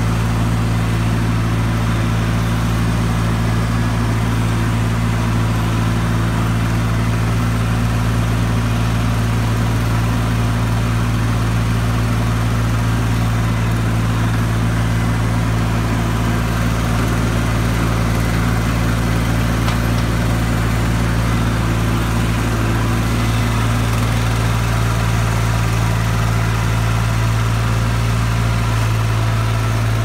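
Simplicity Legacy garden tractor engine running steadily at a constant speed, heard close up from the driver's seat.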